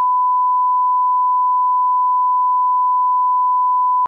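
Line-up test tone that plays with SMPTE colour bars: a single steady, pure beep held unchanged, which cuts off suddenly at the very end.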